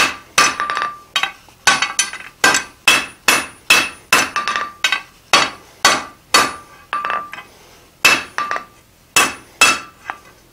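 Blacksmith's hand hammer striking a hot iron bar on an anvil, about two to three blows a second, each with a short metallic ring. He is squaring an upset 90-degree corner in the bar. The blows pause briefly about seven seconds in, then resume.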